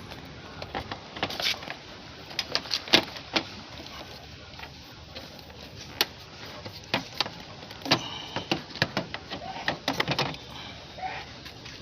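Irregular clicks, knocks and rattles of hand tools and plastic parts as a car's air cleaner housing is unclipped and taken off.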